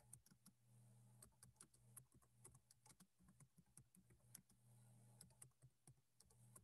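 Faint computer keyboard typing: irregular keystroke clicks, a few a second, over a low steady hum.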